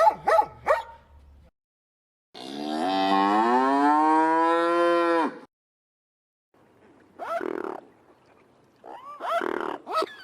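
A cow mooing once: one long call of about three seconds that rises in pitch and then holds steady before stopping abruptly. The last few yaps of a dog come before it, and a few short, arching calls follow near the end.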